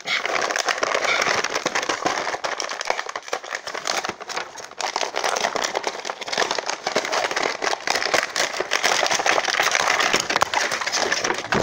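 Plastic packaging crinkling and crackling as it is worked and pried open by hand, with a short lull about four and a half seconds in.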